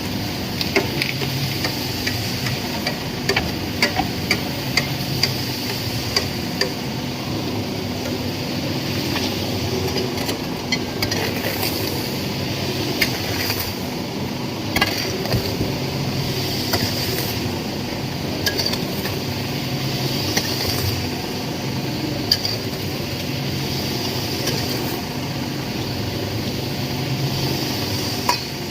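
Concrete mixer running with a steady mechanical hum, overlaid by frequent sharp metallic clinks and knocks, thickest over the first several seconds.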